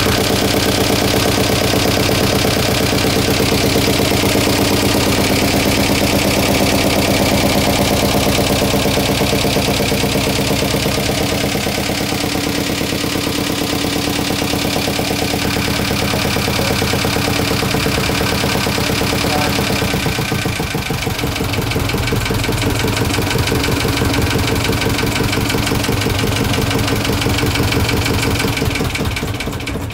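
Small inboard yacht engine, typically a diesel, idling steadily with the engine cover off. It gives a loud, even, rapid beat.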